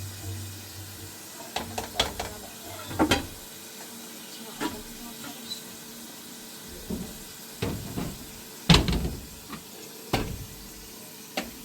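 A dozen or so irregular sharp knocks and clicks over a steady hiss. The loudest knock comes about two-thirds of the way through.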